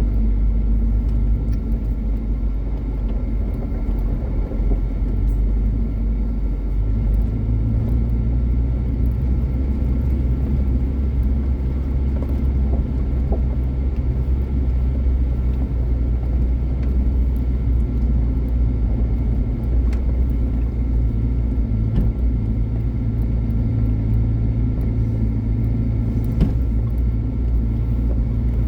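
Motor vehicle engine running steadily with a low drone; its note changes slightly about seven seconds in.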